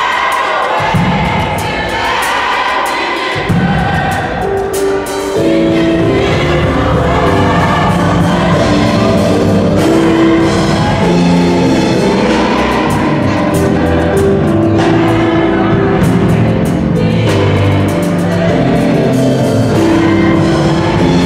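A choir singing a gospel worship song with live band accompaniment; about five seconds in the accompaniment fills out into sustained chords over a steady bass.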